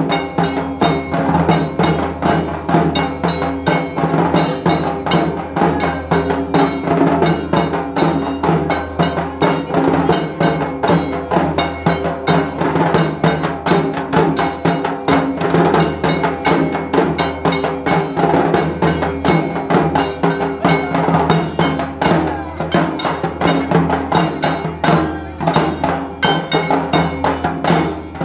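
Several dhak, the large Bengali barrel drums, beaten with thin sticks in a fast, steady rhythm, the strokes coming thick and without a break.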